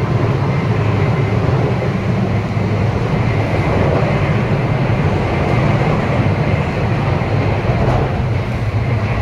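High-speed bullet train running at speed: a steady, loud running noise strongest in the low range, without breaks or changes.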